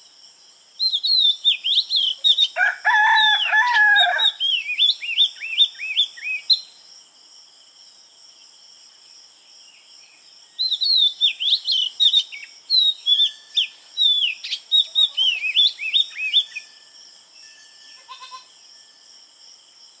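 Wild birds singing: one bird repeats quick, high chirping phrases in two long bouts, with a lower, longer call from another bird about three seconds in. A steady high insect drone runs underneath.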